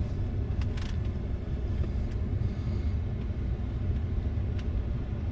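Pickup truck running slowly in reverse down a boat ramp, a steady low rumble with a few faint clicks or knocks.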